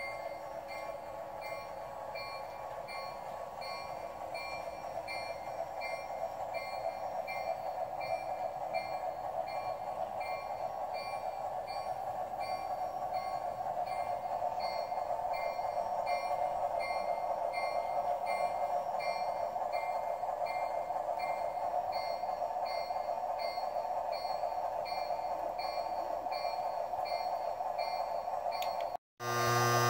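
S-gauge Flyer Chief Baldwin diesel switcher running on the layout, its steady running noise slowly growing louder. Over it, its sound system rings the bell, a high ding repeating about twice a second.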